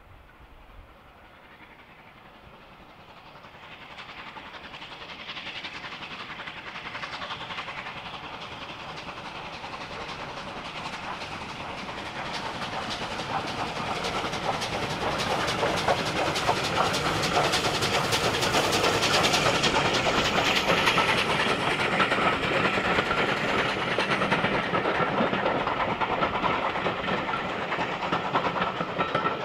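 Steam locomotive-hauled train approaching from a distance, growing steadily louder over the first twenty seconds until it passes close by, with rapid rhythmic beats and rail clatter. Its pitch drops slightly as it goes past.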